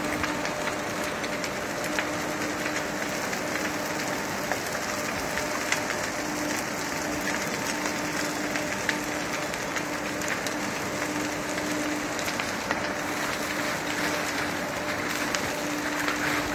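Large fire burning through mountain pine beetle–infested conifers, crackling with dense popping over a steady rush. A low hum comes and goes underneath.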